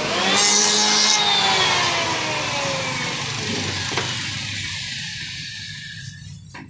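Electric hand planer shaving wood in a short burst. It is then switched off, and its motor whine falls steadily in pitch and fades as the cutter block spins down.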